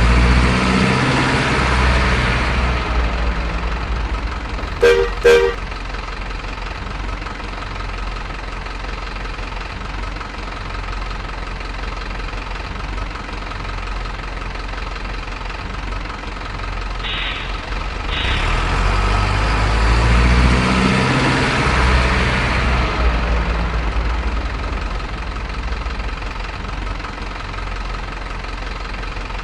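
Radio-controlled toy CC206 locomotive running, with a steady rumbling engine sound that swells from about 18 to 23 seconds in. Two short horn toots about five seconds in, and two brief hissy blips near 17 and 18 seconds.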